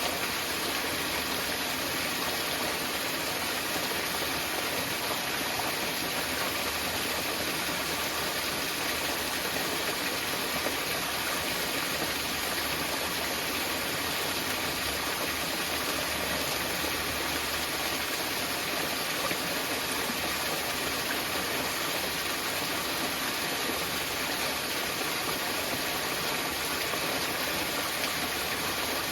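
Small mountain waterfall: water falling and splashing in a steady, even rush.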